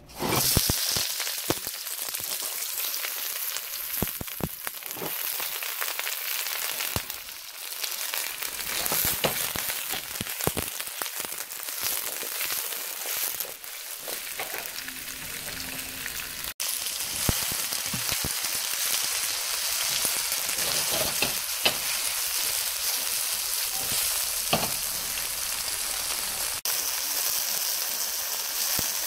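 Chopped garlic, onion and lemongrass hitting smoking-hot sesame oil in a wok, sizzling loudly at once, then peppers and Japanese eggplant stir-frying in it: a steady hiss of frying with scattered clicks and knocks.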